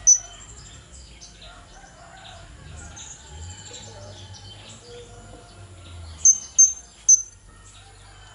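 Blue-crowned hanging parrot calling: short, sharp, high-pitched calls, one at the start and three in quick succession near the end, over softer scattered twittering.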